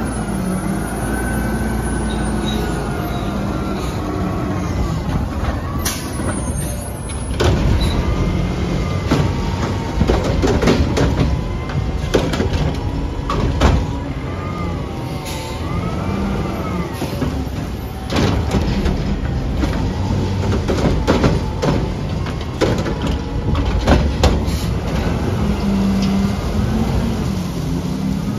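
Front-loader garbage truck's diesel engine running and revving under hydraulic load, with a whine that rises and falls as the arms work. Repeated metal clanks and bangs from the arms and carts during collection, clustered about a quarter of the way in and again through the middle and later part.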